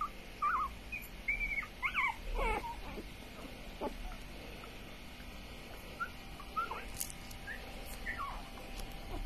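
Newborn Jack Russell terrier puppies squeaking and whimpering in short, high cries, several close together in the first three seconds and a few more scattered later.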